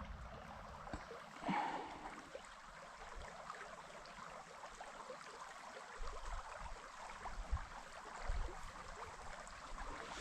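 Creek water flowing and gurgling steadily, with a short louder sound about a second and a half in.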